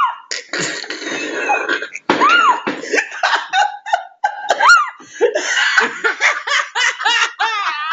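A woman's squeaky hiccups, each a short pitch that rises and falls like a chihuahua's yip, two of them clearly standing out, amid people laughing hard.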